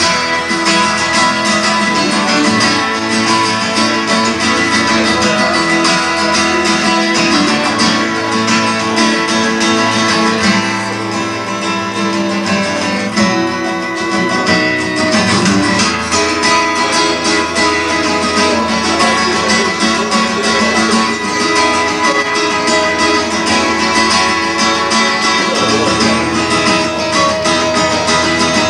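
Two acoustic guitars playing an instrumental piece together live, picked and strummed, easing off slightly around the middle.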